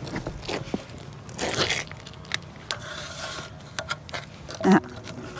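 Scraping and clicking from a safety rope, harness and a metal strip being handled on a shingled roof, with a short vocal sound near the end.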